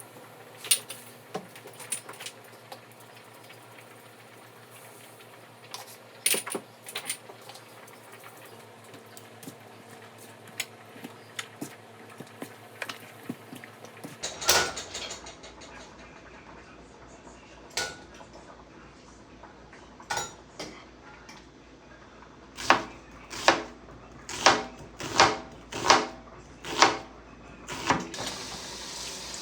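Kitchen clatter of dishes and utensils: scattered clinks and knocks, then a run of about nine evenly spaced strikes, roughly one and a half a second, like a utensil hitting a bowl. A steady hiss comes up in the last second.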